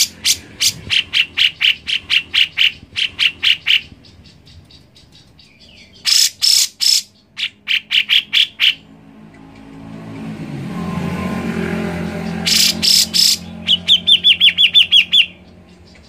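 Grey-cheeked bulbul (cucak jenggot) singing: three bursts of rapid, sharp, repeated notes, about three a second, with pauses between. The last burst ends in a run of quick down-sweeping notes. A low engine hum swells in the background midway.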